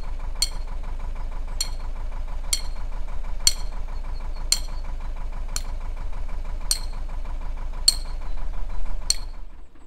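Mooring pin being hammered into the towpath, a ringing metal clank about once a second, over the steady idle of the narrowboat's diesel engine.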